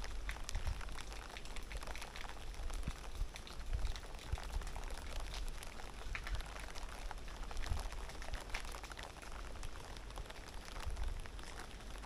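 Heavy rain falling steadily: an even hiss scattered with many close drops ticking, over a low rumble.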